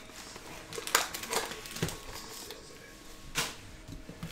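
Trading cards and foil card packs being handled on a table: a handful of short rustles and taps, the loudest about a second in.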